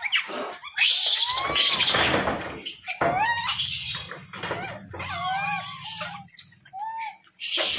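A troop of rhesus macaques feeding together: short squeals and chirping calls from several monkeys, with bursts of scuffling among them.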